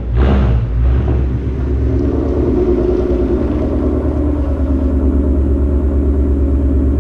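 Car engine idling with an even, regular pulse, after a short rise in revs just at the start.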